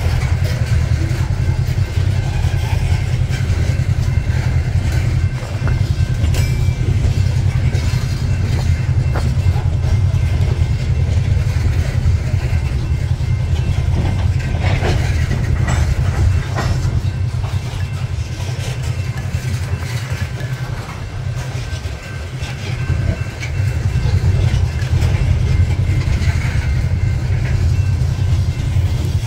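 Coal hopper cars of a freight train rolling past at trackside: a steady low rumble of wheels on rail with clickety-clack over the rail joints and a faint high squeal at times. The rumble dips briefly about three-quarters of the way through.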